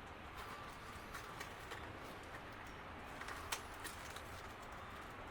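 A few faint, scattered light metal clicks and clinks of small engine bolts being handled, the sharpest about three and a half seconds in.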